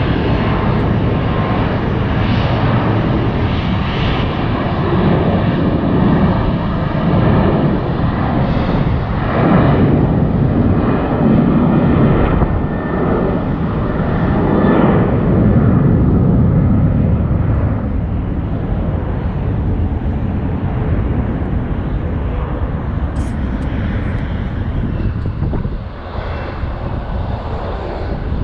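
Jet airliner engines rumbling loudly as a plane passes at the airport, the noise swelling to its peak partway through and then slowly fading away.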